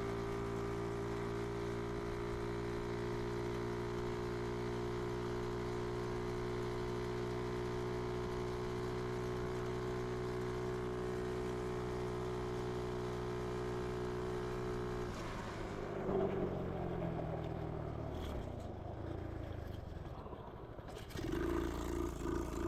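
Small 125cc engine of a homemade three-wheeler running at a steady, high speed for about fifteen seconds, held flat out on a top speed run. Then the note breaks off and falls away as the trike slows.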